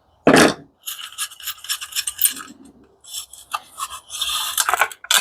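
Metal scraping and rubbing in short, irregular strokes as parts of a commercial coffee maker's burner assembly are worked loose by hand, with one loud knock just after the start.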